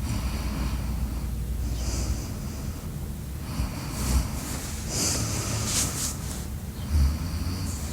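A sleeping person snoring: a low snore for about the first two seconds, then a few hissy, snorting breaths, with a short low snort near the end.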